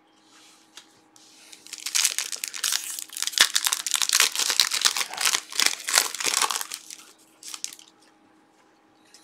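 Foil wrapper of a Select football trading-card pack crinkling and crackling as it is torn open by hand, for about five seconds, with a brief last crinkle near the end.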